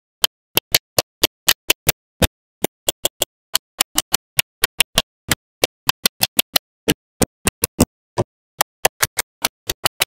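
Small magnetic balls clicking together one after another: a long, irregular series of sharp clicks, about four a second, each short and separate.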